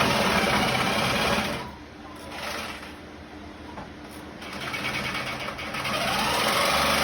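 A small engine running. It falls away to a low level about a second and a half in, then speeds back up with a rising pitch near the end.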